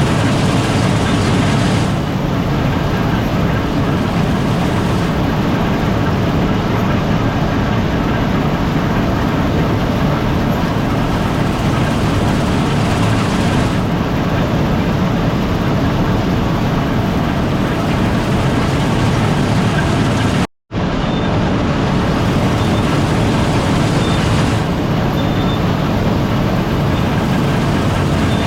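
Gleaner R72 combine running steadily under load while harvesting rye: a continuous machine noise of engine and threshing rotor, heaviest in the low end. It drops out for a split second about two-thirds of the way through.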